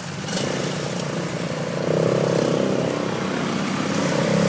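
Small ATV (quad bike) engines running while the quads are ridden slowly, the engine sound growing louder about two seconds in.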